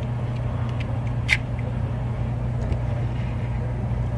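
Faint metal clicks and taps from a butane lighter's insert being worked back into its metal case, with one sharper click about a second in, over a steady low hum.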